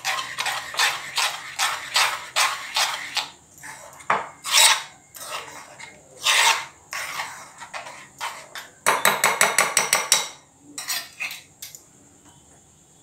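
Besan batter being beaten by hand in a plastic bowl: a steady run of short mixing strokes, about four a second, then scattered strokes, and a quick flurry of faster strokes about nine seconds in before the mixing stops near the end.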